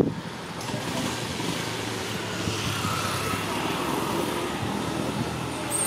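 A motor vehicle engine running steadily, with a sharp knock right at the start.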